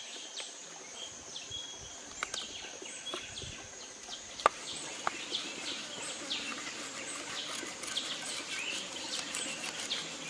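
A large knife scraping and cutting a fish on a wooden chopping board, with a few sharp knocks of the blade on the board, the loudest about four and a half seconds in. Birds chirp and a steady high insect hum runs behind.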